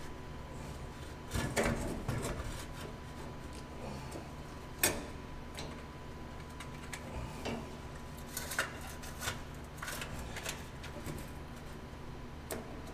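Scattered light knocks and clicks of hand tools and metal exhaust parts being handled and fitted, with a sharper knock about five seconds in and a run of clicks a few seconds later.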